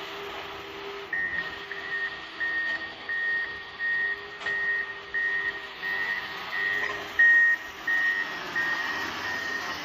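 Motor grader's reversing alarm beeping steadily, about one high beep every 0.7 seconds, starting about a second in, over the running diesel engine: the machine is backing up.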